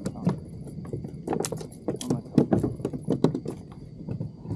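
A small bluefish flapping against a plastic kayak as it is handled, an irregular rapid run of knocks and slaps.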